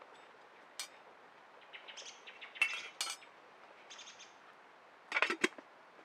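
Light clinks and knocks of small objects being handled by hand, in a few short clusters. The loudest, fuller rattle comes near the end.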